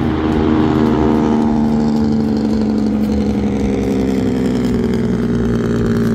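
A boat motor running steadily, giving a loud, even low hum.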